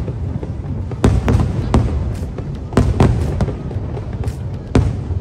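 Fireworks display: aerial shells bursting in an irregular series of sharp bangs over a continuous low rumble.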